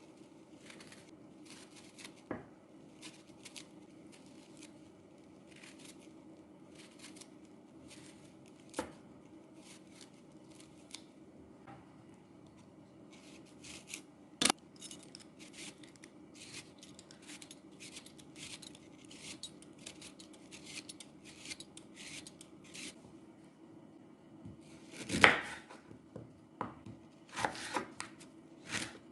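Knife cutting produce on a cutting board: light, crisp cutting strokes, roughly one or two a second, broken by a few louder knocks of the blade on the board, the loudest near the end.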